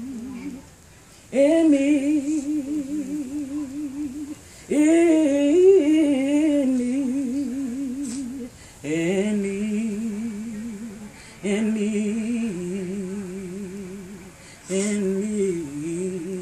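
A woman's voice singing a slow gospel melody in long held notes with a wide vibrato: five drawn-out phrases with short breaths between them, the last three pitched lower than the first two.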